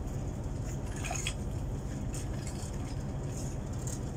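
Steady low background hum, with a few faint soft rustles of a tissue being rubbed over a smartphone's glass screen to clean it.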